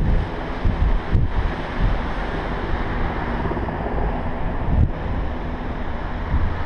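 Wind buffeting the camera microphone: a steady rush of noise with gusty low rumbles that surge every second or few.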